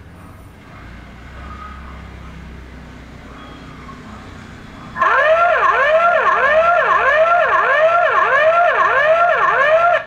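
Electronic siren alarm tone from the Hikvision DS-2CD1043G2-LIUF/SL camera's audible alarm output, played as a test of the 'Audio Warning' sound. It starts loud about halfway in as a repeating whooping sweep, about two a second, and cuts off suddenly at the end. A faint low hum comes before it.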